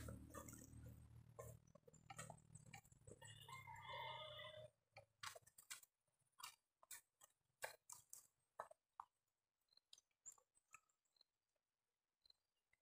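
Near silence: faint outdoor ambience with a low steady hum that cuts off about five seconds in, and scattered light clicks and ticks.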